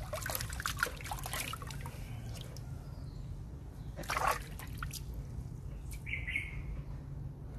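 Water splashing and trickling in two short spells: the first for about a second and a half at the start, the second about four seconds in.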